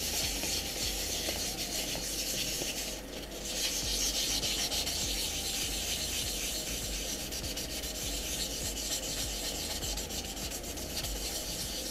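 800-grit wet-and-dry sandpaper rubbing back and forth over a wet, primed PLA 3D print, a steady scratchy hiss with a brief pause about three seconds in. It is cutting back a black guide coat sprayed over filler primer.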